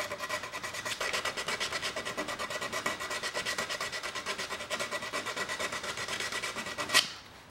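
SurfPrep power sander with a soft sponge-like pad sanding the detailed turned section of a wooden table leg: a steady high whine under rapid, even scratching. It cuts off near the end.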